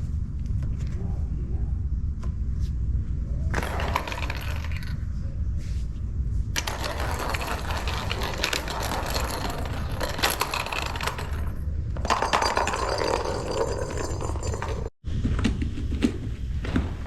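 Plastic cat toy rattling and scraping as it is batted about, over a steady low rumble, with a few sharp clicks near the end.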